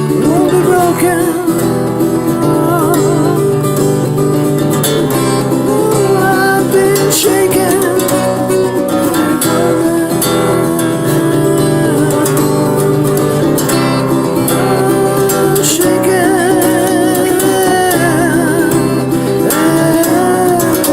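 Music: a strummed acoustic guitar with singing, the melody held in long wavering notes.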